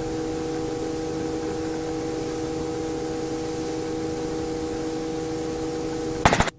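Steady radio static hiss with a few faint steady hum tones over the helicopter's headset audio, covering the rotor noise. The hiss breaks off near the end.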